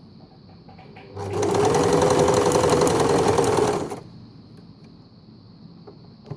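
Empisal Dressmaker 270D sewing machine running for about three seconds, stitching a sample of its built-in stitch L; the motor hum rises as it speeds up and falls as it slows and stops. A single small click follows near the end.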